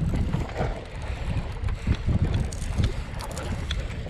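Wind buffeting the microphone in uneven gusts, a low rumble over open sea.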